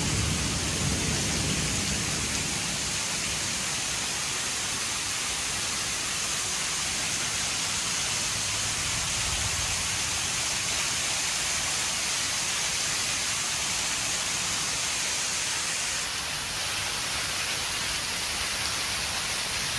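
Heavy rain pouring down in a steady, even hiss. Its tone shifts slightly about sixteen seconds in.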